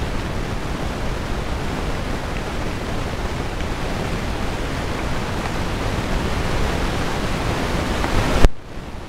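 Steady, loud rushing noise, even from low to high pitch, with no distinct calls or knocks in it. About eight and a half seconds in it cuts off suddenly with a sharp thump.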